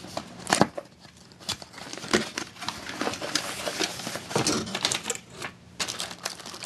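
Packaging being handled as a computer's accessories are unpacked: an irregular run of clicks, crackles and rustles from cardboard and plastic.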